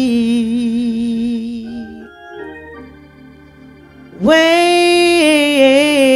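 A woman's solo gospel singing: a long held note with vibrato over a sustained organ chord. The voice drops out for about two seconds, leaving only the organ, then comes back in loudly with another long held note.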